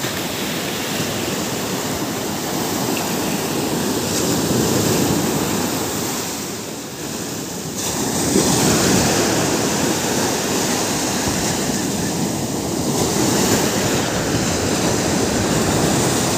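Ocean surf breaking and washing up onto a sandy beach as a steady rush of water. It dips briefly a little before halfway through, then swells louder again.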